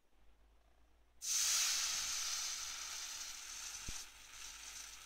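Soldering-iron tip of a Parkside PLSD 48 A1 station, set to 350 °C, dipped into water: a sudden loud hissing sizzle of boiling water and steam starting about a second in, easing off gradually and dropping lower about four seconds in as the tip cools.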